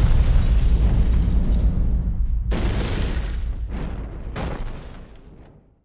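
A helicopter and its fuel exploding in a fireball: a deep boom and rumble that fades away over several seconds. Two further sharp blasts come about two and a half and four and a half seconds in.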